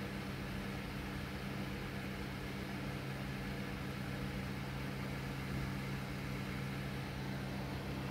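Steady low electrical hum over a faint even hiss, with no distinct sounds.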